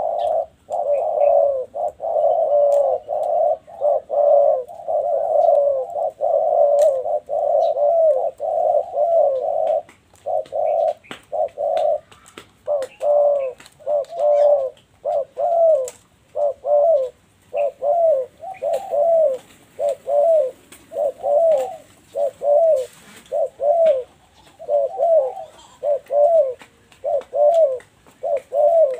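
Spotted doves cooing in a long run of repeated coo phrases. The phrases are closely packed at first, then come about one a second.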